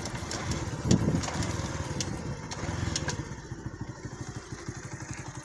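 Small motorcycle engine running as the bike rides along a dirt road, with a sharp knock about a second in. After about three seconds it gets quieter as the bike slows toward the gate, and the wind hiss on the microphone eases.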